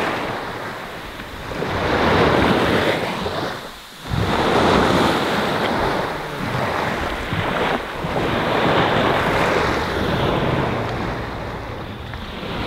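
Sea water washing and small waves breaking, mixed with wind buffeting the microphone. The noise swells and fades every few seconds, with a brief lull about four seconds in.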